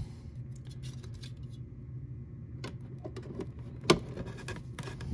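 Hands handling a hard clear plastic Funko Pop protector case, giving scattered light clicks and taps, then one sharp click about four seconds in as the lid is pressed on. A low steady hum runs underneath.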